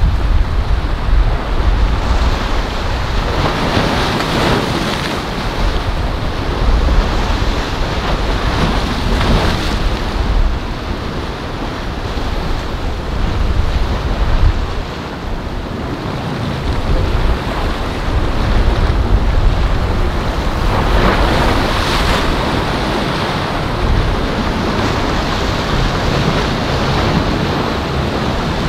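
Wind buffeting the microphone over the rushing wash of a choppy sea, with a heavy low rumble; the rush of water swells louder a few times.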